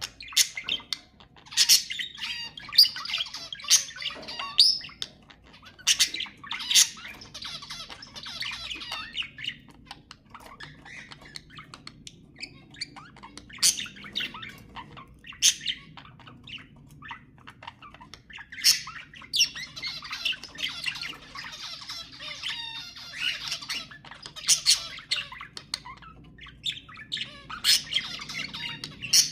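Budgerigar warbling chatter, broken by sharp squawks and chirps that come in clusters, with a quieter stretch in the middle.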